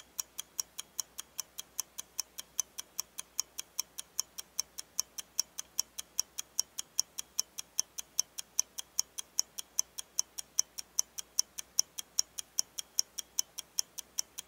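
Clock ticking quickly and evenly, a sound effect marking the waiting time while the on-screen countdown runs.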